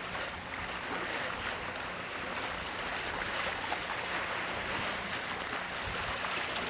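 Steady rush of wind and water aboard a sailboat under way, with wind noise on the microphone.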